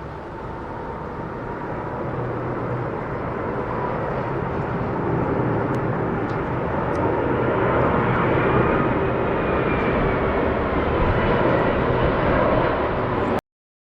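Airbus A330 airliner passing low overhead on final approach, the rumble of its twin jet engines growing steadily louder. Near the loudest point, a whine rises and then falls in pitch as it goes by. The sound cuts off suddenly just before the end.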